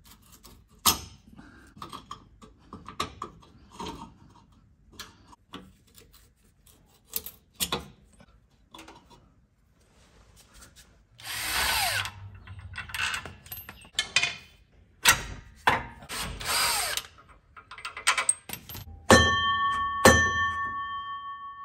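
Light metal clicks of hand tools, then a cordless power tool running in short bursts about 11 and 16 seconds in as the rear shock's bottom nut and a brake-line bracket come off. Near the end there are two sharp metal clanks that keep ringing.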